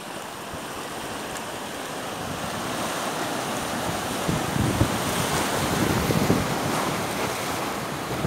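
Sea surf washing and breaking over shore rocks, growing louder, with wind buffeting the microphone from about halfway through.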